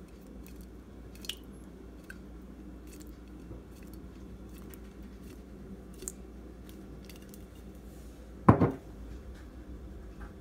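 Ground beef and vegetables cooking in a skillet under freshly poured pasta sauce, with faint soft crackling and scattered small ticks and pops. A short, loud, pitched sound about eight and a half seconds in.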